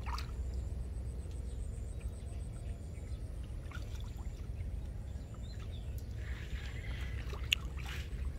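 Water sloshing and splashing lightly around a person wading chest-deep in a pond, with a sharp click near the end, over a steady low rumble.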